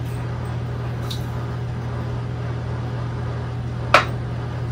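Steady low background hum, with one sharp click about four seconds in as a plastic measuring spoon knocks against the rim of a glass beaker while salt is added.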